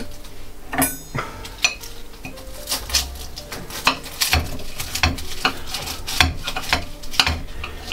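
A table knife and fork cutting through a flaky puff-pastry pasty on a ceramic plate: irregular clicks and scrapes of the cutlery against the plate, with a brief high ring about a second in.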